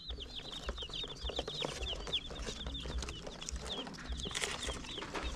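A brood of day-old broiler chicks peeping constantly: many short, high cheeps, each sliding down in pitch, overlapping one another.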